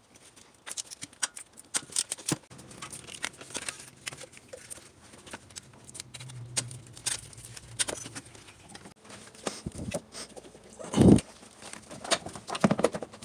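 Ratchet wrench working the alternator mounting bolts: irregular small metallic clicks and clinks of the tool and bolts being handled, with one heavy thump near the end.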